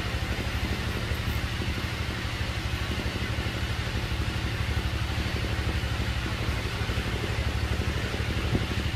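A steady low engine-like hum with a fast, even throb, unchanging throughout.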